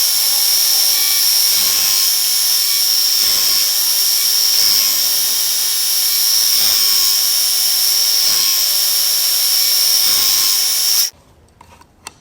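Work Sharp Ken Onion Edition belt knife sharpener running with a steady high whine and belt hiss as a knife is sharpened on it, pulsing about every second and a half. The sharpener is switched off about eleven seconds in.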